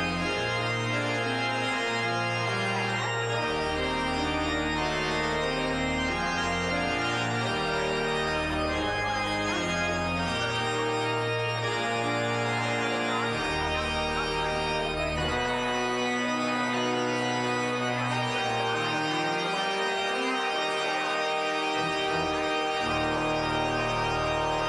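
Church pipe organ playing the postlude: held chords over a stepping bass line, with the lowest notes dropping out for several seconds past the middle.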